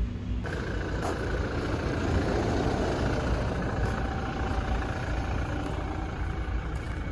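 A vehicle running: a steady low rumble with a faint hum, starting abruptly about half a second in.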